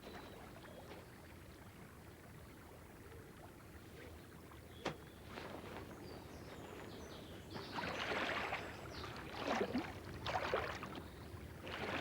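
Water rushing, with several louder splashing surges in the last third.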